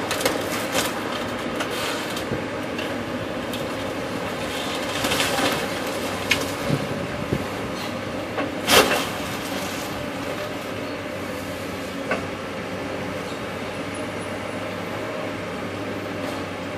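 A hydraulic excavator demolishing a house: wood and debris crack and crash down in scattered bursts over a steady engine rumble. The loudest crash comes about nine seconds in.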